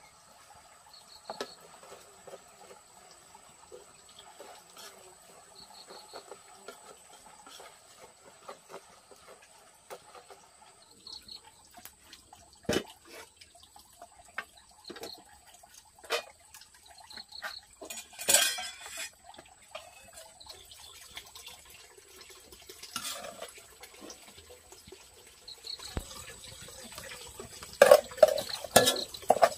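Water being handled: sparse splashes and trickles with scattered knocks, and a louder run of splashes and clatter near the end.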